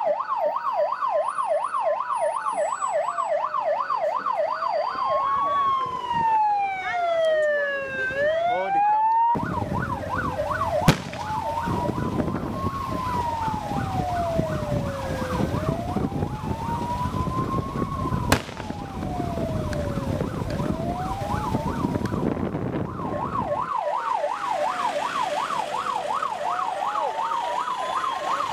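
Two vehicle sirens sounding together. One runs a fast yelp of about four rising-and-falling sweeps a second; the other runs a slow wail that rises and falls every five seconds or so. A rush of road and engine noise comes in about nine seconds in and drops away a few seconds before the end, with two sharp knocks in between.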